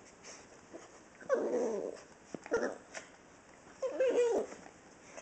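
Dogs' play vocalizations during rough play between a dachshund and a Great Pyrenees: three short whiny growls, about a second and a half in, at two and a half seconds, and around four seconds in.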